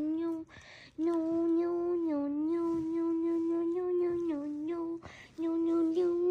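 A voice humming one long held note, almost steady in pitch with small wobbles. It stops twice for a quick breath in, about half a second in and again near five seconds.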